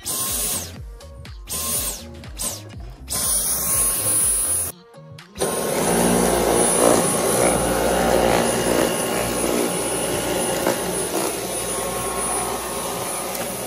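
Background music, then about five seconds in a Dyson Cyclone V10 cordless stick vacuum switches on and runs steadily with its motorised brush head on the floor.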